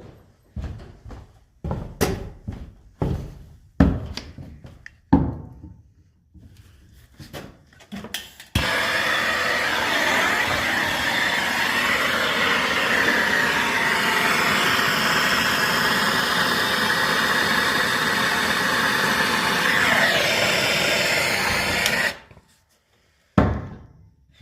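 Scattered knocks and clicks of handling, then a soldering torch burning with a steady hiss for about thirteen seconds, heating the copper pipe and steel bracket to solder them, and cut off suddenly; one more click near the end.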